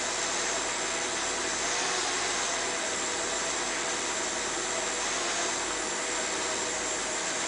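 Small electric motor turning the propeller of a fischertechnik monorail carriage, a steady whirring hum with a few steady tones. The motor is driven by pulse-width modulation and is running slowly.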